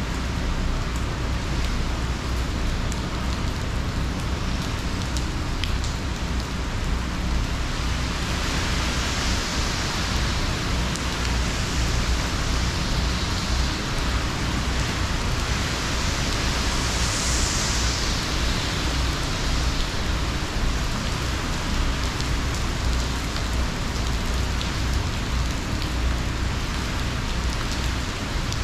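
Heavy hurricane rain pouring steadily onto a pool and its tiled deck under a screen enclosure. Gusts of wind swell the hiss about nine seconds in and again around seventeen seconds, over a steady low rumble.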